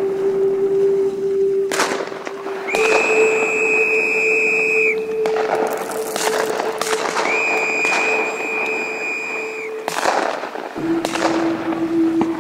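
Two long, steady whistle blasts, about two seconds each, blown by wetland rescuers to drive ducks away from the guns. Several sharp shotgun shots crack and echo in between, over a steady low drone.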